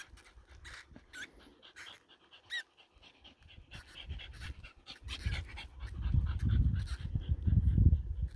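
A dog panting close by, loud and pulsing from about five seconds in. Before that, a run of faint short high-pitched squeaks and ticks.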